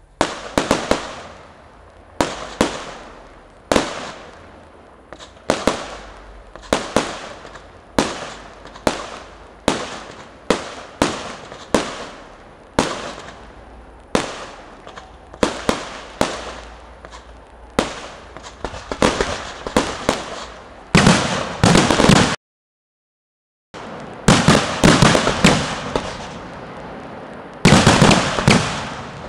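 Fireworks display: shells bursting with sharp bangs about once a second, each trailing off, then building into rapid dense volleys. About 22 seconds in the sound drops out completely for just over a second before the volleys resume.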